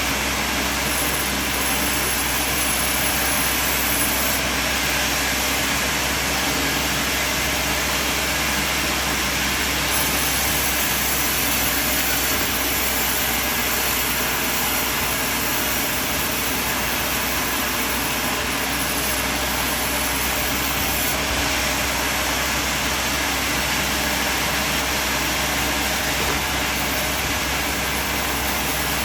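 Sawmill machine running steadily: a constant, loud machine noise with a low hum underneath.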